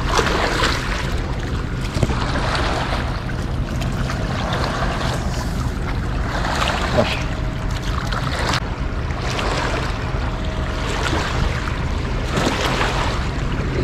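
Wind buffeting the microphone over a steady rush of moving water.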